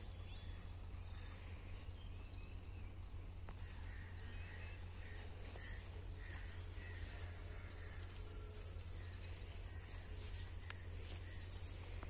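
Faint rural outdoor ambience: a steady low rumble with faint bird chirps scattered through it, and a faint, rapid high-pitched trill in the second half.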